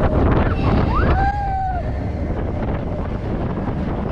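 Roller coaster train running, with a steady low rumble and wind buffeting the microphone; about a second in, a brief voice-like whoop rises and falls.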